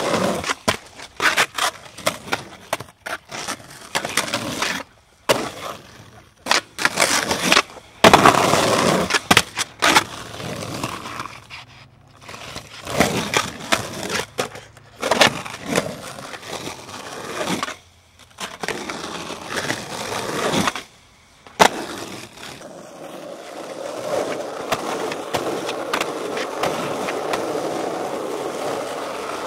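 Skateboard urethane wheels rolling on rough concrete and asphalt, with repeated sharp clacks and slaps of the board hitting and landing. The runs are broken by several abrupt breaks, and the last stretch is one long steady roll across asphalt.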